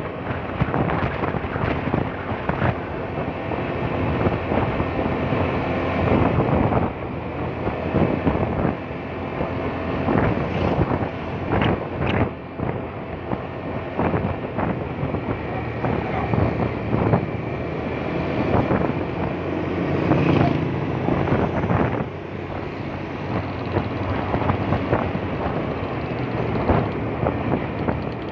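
Wind buffeting the microphone of a moving motorcycle, gusty and uneven, with the motorcycle's engine running steadily underneath.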